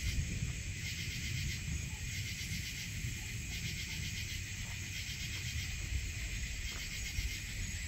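Night insects trilling in a dense chorus that swells and fades about once a second, over a steady low rumble.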